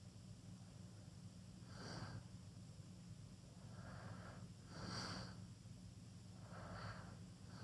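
A sleeping teenager snoring faintly with mouth wide open: three slow, soft breaths about two and a half seconds apart.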